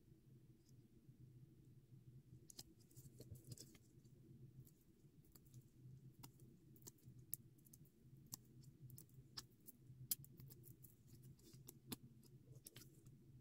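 Faint handling of paper cutouts: soft rustles and many small, irregular clicks and ticks as the paper flowers are fingered and foam adhesive squares are pressed onto them, over a low steady hum.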